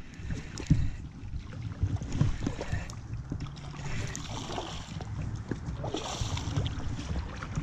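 Shallow stream water running over gravel, with a low rumble of wind on the microphone and splashing from a hooked trout thrashing at the surface.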